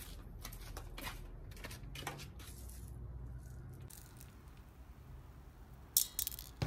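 Whole black peppercorns being handled and sprinkled by hand into an aluminium pot over a raw chicken: small scattered clicks, then a quick cluster of sharper ticks about six seconds in.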